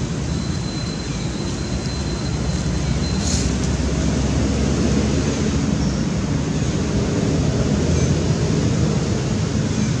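A steady low rumbling noise that grows slightly louder, with a faint thin high tone over the first three seconds that ends in a brief hiss.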